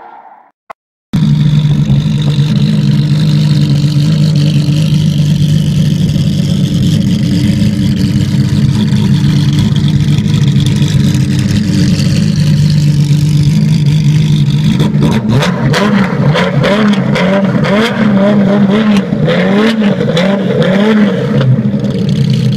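A decat Ferrari F50's V12, its catalytic converters removed, idling loudly and steadily. About two-thirds through, the engine speed rises and falls a little several times, with some sharp knocks over it, before settling back to a steady idle near the end.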